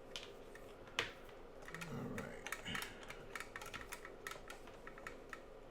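A quick run of small clicks and taps from test leads and meter hardware being handled and connected, with one sharper click about a second in.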